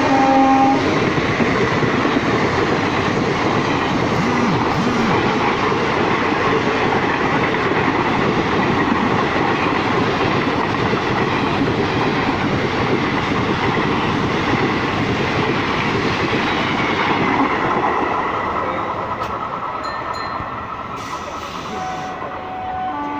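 A WCAM-3 electric locomotive's dual-tone horn, its lower note ending within the first second. Then comes the steady noise of the Udyan Express running through on the rails, fading away from about 17 seconds in. A horn starts again right at the end.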